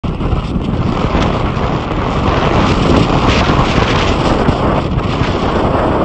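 Snowstorm wind buffeting the microphone: a loud, steady rumbling rush that swells a little in gusts.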